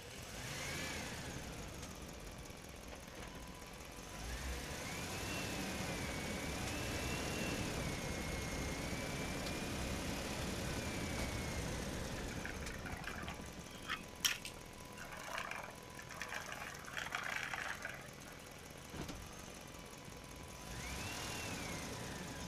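Plastic toy dump truck rolled across a rough concrete floor, its wheels rumbling under a wavering high whine for several seconds. Then the small plastic toy figures clatter and click as they are handled.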